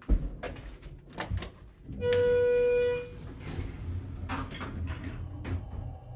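Knocks and clicks inside a Schindler-modernized hydraulic elevator car. About two seconds in, a steady electronic beep sounds for about a second, followed by more knocks as the car doors close.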